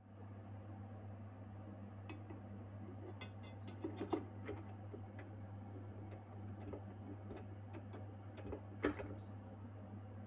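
Scattered clicks and light metallic knocks as a stand mixer's flat beater attachment is handled and fitted into place, the sharpest about four seconds and nine seconds in, over a steady low hum.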